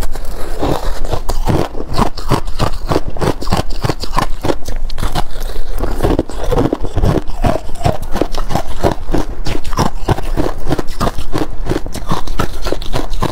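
Close-miked biting and chewing of crunchy frozen ice, buckwheat ice and freezer frost, as a fast, uneven run of crisp crunches, several a second.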